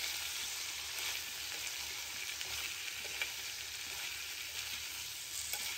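Sliced ivy gourd (tindora) sizzling steadily in hot oil in a kadai as it is stirred and tossed with a spatula, with a few light clicks of the spatula against the pan.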